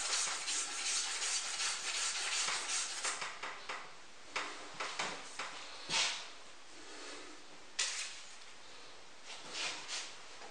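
Cloth rubbing briskly on the sculpture's metal rods as they are polished to a shine, quick strokes for about three seconds. Then scattered light knocks and handling noises, with a sharper click about six seconds in and another near eight seconds.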